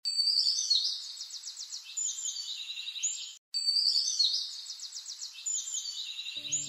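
Bird song of chirps, rapid trills and short whistles, a recorded phrase about three and a half seconds long that cuts out briefly and then repeats exactly, as a looped backing track. Low music notes come in near the end.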